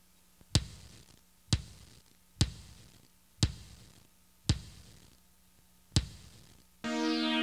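Six sharp thud sound effects, about a second apart, each with a short decaying tail, timed to the letter tiles of an animated logo landing one by one. Near the end a held synthesizer chord comes in suddenly.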